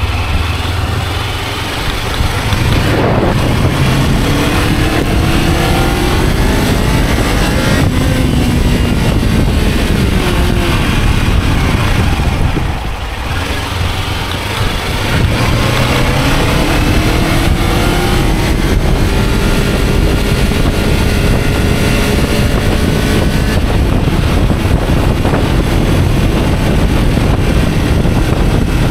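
Sport motorcycle engine accelerating through the gears, its pitch rising in repeated sweeps over a steady rush of wind and road noise. About thirteen seconds in it drops off briefly as the throttle eases, then pulls up again.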